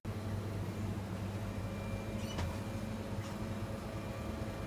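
Shop background: a steady low hum with a few faint clicks and rustles of items being handled on the shelves.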